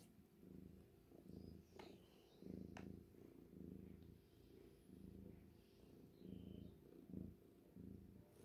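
Domestic cat purring softly close by, a low rumble that pulses in and out about every three-quarters of a second.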